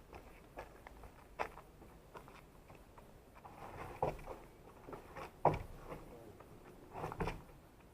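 Irregular footsteps and scuffs with a few louder knocks, as people fetch and carry a ladder.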